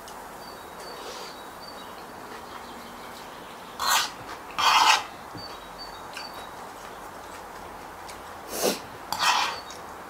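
Close-up mouth sounds of a person eating spicy noodle salad: two pairs of short, hissing slurps and sucked-in breaths, one pair about four seconds in and another near the end.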